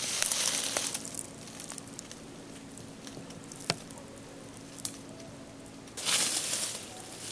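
Footsteps and rustling through brush and dry leaves on the forest floor, in bursts during the first second and again from about six seconds in, with two sharp clicks in the quieter stretch between.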